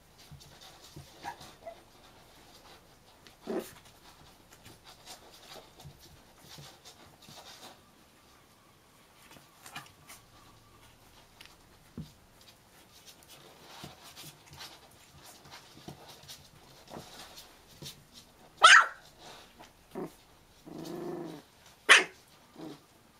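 Young Thai Bangkaew puppies giving a few short, sharp, high yips, loudest twice near the end, with one longer, lower growl-like call between them and soft rustling of the puppies moving in between.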